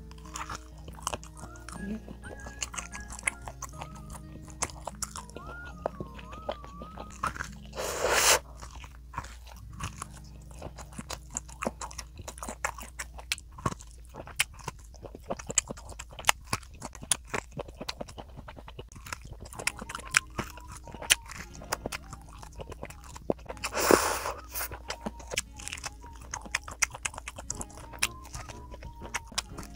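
Close-miked biting and chewing of cooked corn on the cob: kernels crunching and popping off the cob in a steady stream of small crisp clicks. Two louder bursts of noise stand out, about a quarter of the way in and again about three quarters in.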